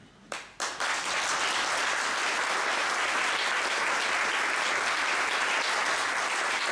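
An audience applauding: a few separate claps about half a second in, then steady applause.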